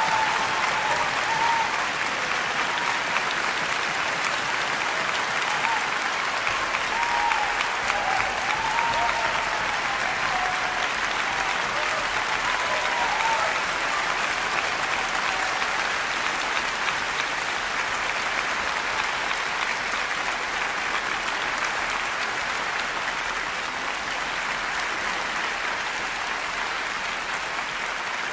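Audience applauding, joined by orchestra members, steady and easing off slightly toward the end.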